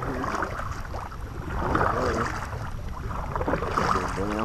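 Double-bladed kayak paddle strokes splashing into choppy lake water, alternating sides every couple of seconds, over a steady wind rumble on the microphone.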